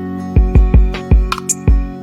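Background music: a beat of deep kick-drum thumps and sharp percussive hits over held chords.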